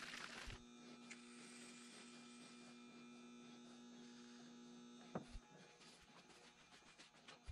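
Faint, steady electrical hum that stops about five seconds in. A short hiss comes at the start, and a sharp knock comes just as the hum ends.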